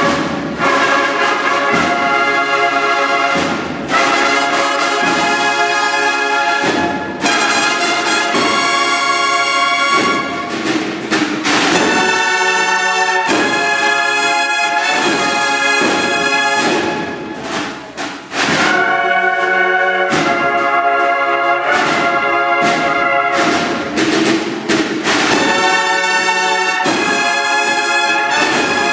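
Youth band's brass section playing loud, sustained chords, broken by a few short pauses.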